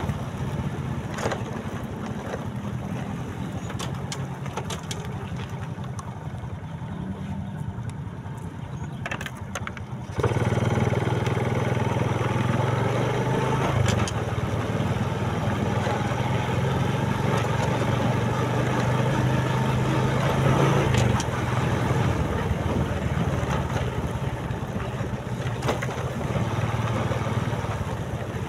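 Motorcycle engine running steadily on the move, with tyres crunching and clicking over a wet gravel road; it gets noticeably louder about ten seconds in.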